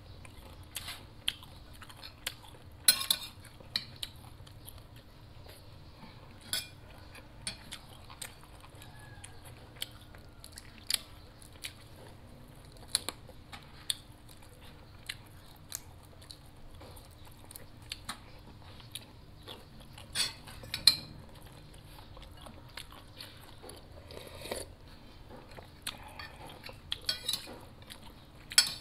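Eating at the table: a spoon clicks and scrapes against a ceramic plate and bowl, mixed with crunching and chewing as a cooked prawn is peeled by hand and eaten. Scattered sharp clicks, the loudest about a third of the way in and again near the end.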